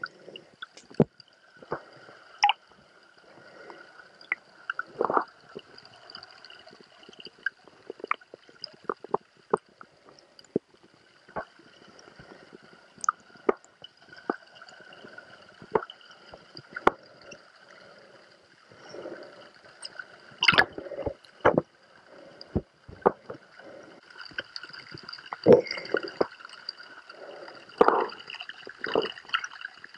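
Water heard through a submerged camera: muffled gurgling with many scattered clicks and knocks, a few louder ones in the second half, over a faint steady high hum.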